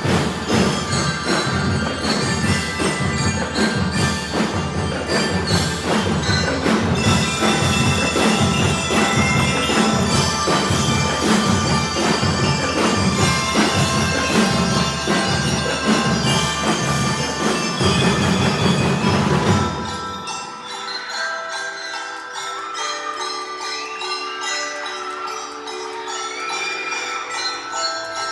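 Drum and lyre corps playing: marching drums beat a steady rhythm under bell lyres carrying the melody. About twenty seconds in the drums stop and the bell lyres play on alone, quieter.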